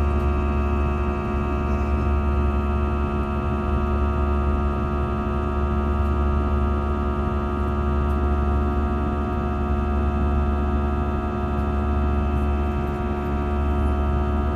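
Airliner turbofan engines heard from inside the cabin during the climb after takeoff: a steady drone made of a deep hum and many constant tones, unchanging throughout.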